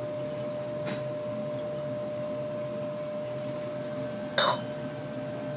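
Steady low hum with a constant faint tone from a magnetic stirring plate spinning the mixture in a glass beaker. A single short, sharp knock sounds near the end.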